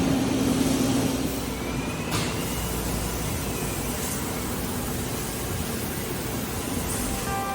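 CNC turning-milling lathe running under power, a steady machine noise. A low hum drops out about a second and a half in, and there is a single sharp click about two seconds in.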